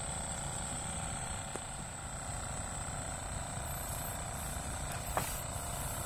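Steady outdoor background drone with a thin, steady high whine running through it. A faint click comes about one and a half seconds in, and a sharper knock about five seconds in.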